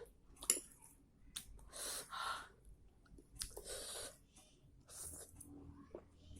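Close-up mukbang eating sounds: a mouthful of mie nyemek noodles being chewed, with short wet mouth clicks and two longer breathy sounds about two and four seconds in.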